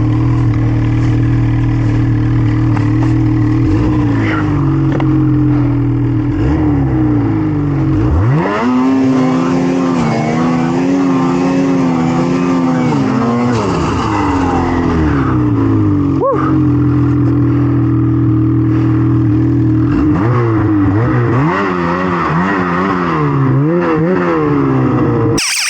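Snowmobile engine running at a steady drone, then revving up and down again and again, its pitch rising and falling as the throttle is worked. It cuts off abruptly near the end.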